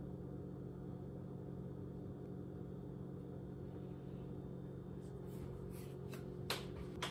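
Steady low electrical hum of room tone, with a few faint light clicks in the last two seconds.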